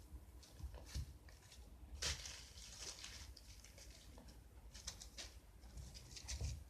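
Faint irregular rustling and light scratchy taps, with a few louder ones about one, two and six seconds in.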